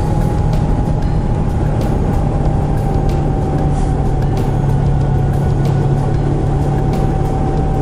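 Suzuki GSX250R motorcycle's parallel-twin engine running at a steady cruise, its pitch easing down slightly, under a heavy rush of riding wind.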